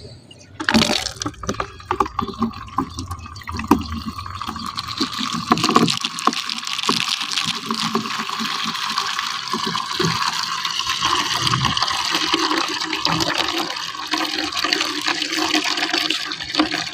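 Water running from a tap, filling a container for washing clothes; it starts about a second in.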